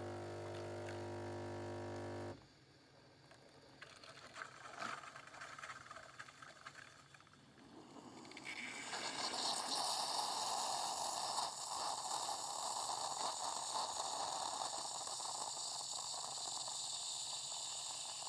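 Bosch Tassimo pod coffee machine brewing a creamer pod: a steady hum stops about two seconds in, then from about eight seconds in liquid hisses and gurgles steadily into the mug.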